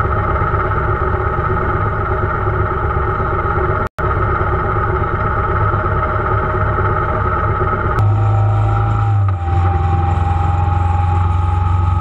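Motorcycle engines idling at a standstill, a steady low hum with an even drone above it and a split-second break in the sound about four seconds in. About two-thirds of the way through, the sound changes to a motorcycle engine running at a steady cruise on the road.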